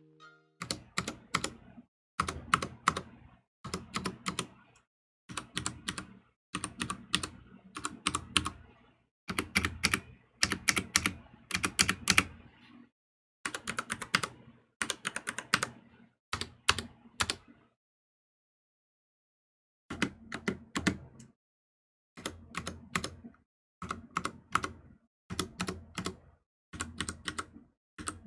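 Typing on a Ducky One 2 TKL mechanical keyboard with Cherry MX Brown switches: quick runs of clacking keystrokes in bursts of about a second, with short pauses between them and one silent pause of about two seconds midway.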